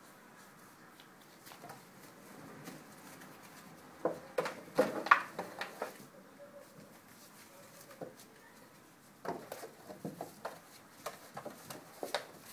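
Month-old bully puppies scuffling and playing on pee pads, knocking about an empty plastic bottle. There are two bursts of clicks and taps, the louder about four seconds in and another near the end.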